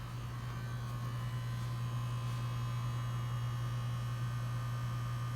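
A steady low hum with a fainter higher buzz, unchanging throughout.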